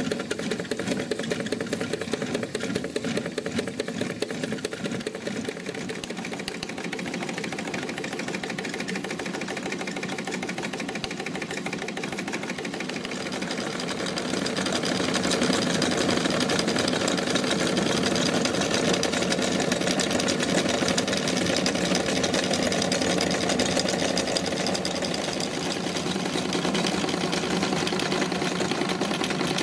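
Wilesco D-20 miniature steam engine running, its flywheel driving belt-driven line shafting and toy workshop machines: a steady, rapid mechanical clatter that grows louder about halfway through.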